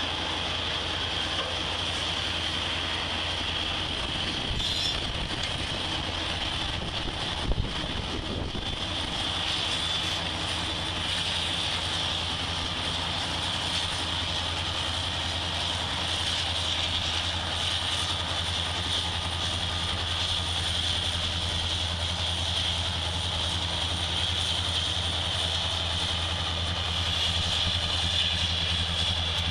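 Freight trains passing: diesel locomotives running with a steady low drone under continuous wheel and rail noise, with one short sharp clank about seven and a half seconds in.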